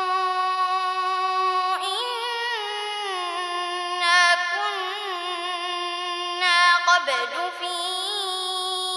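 A boy reciting the Quran in a melodic, chanted tajweed style, drawing out long held notes with small wavering ornaments.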